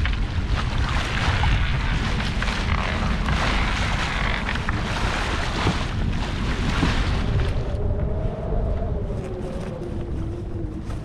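Wind buffeting the microphone and water rushing along the hull of a sailing yacht under way. About eight seconds in the rushing hiss falls away, leaving the wind rumble and a faint wavering hum.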